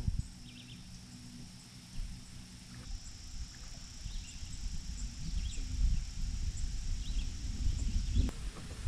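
Outdoor lake ambience: a steady high insect drone with a few faint short chirps, over an irregular low rumble that grows louder in the second half.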